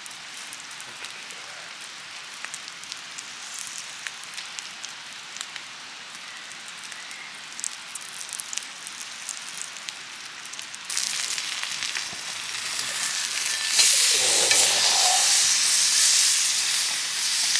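Chicken legs sizzling on a hot iron griddle plate: faint at first with scattered crackles, then louder about eleven seconds in and louder again near the end as the plate heats up.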